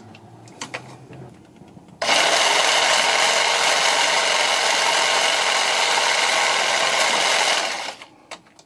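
Handheld power saw cutting through a seized steel eccentric bolt in the rear suspension arm. After a couple of seconds of light clicks as the tool is set in place, the saw runs steadily for about six seconds and then stops.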